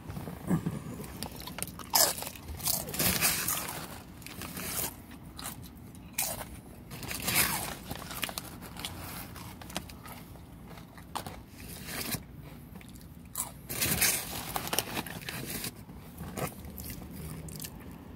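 A person biting and chewing crunchy tortilla chips: bursts of loud crunching every second or two, with quieter chewing in between.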